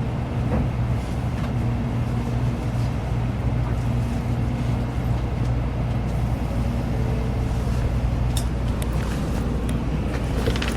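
Steady cabin noise inside a Shinkansen bullet train: a continuous low hum and rumble, with a fainter tone that comes and goes and a few light ticks near the end.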